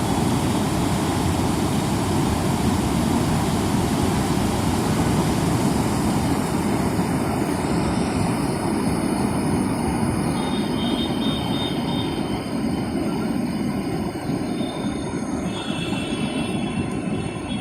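Dravyavati river in flood after heavy rain: a steady, loud rush of fast-flowing water, easing slightly near the end, with faint high whistling tones in the second half.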